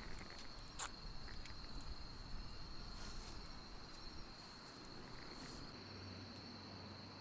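Crickets singing in a steady, unbroken high trill, with a few faint clicks.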